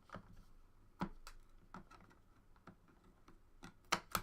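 Light clicks and taps of trading cards and hard plastic card holders being handled on a table, with two louder clicks near the end.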